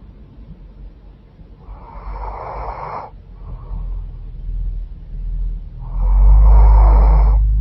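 A woman snoring with a stuffy, congested nose: two long snores about four seconds apart. A low rumble swells under the second snore, which is the loudest part.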